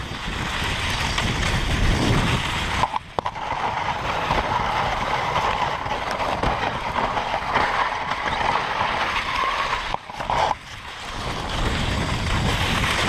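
Wooden dogsled running over a snowy trail behind a husky team: a steady rushing of runners on snow, with wind rumbling on the microphone. The level drops briefly twice, about 3 and 10 seconds in.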